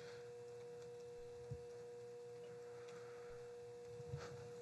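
Quiet room tone with a faint steady electrical tone held at a single pitch, and one small click about one and a half seconds in.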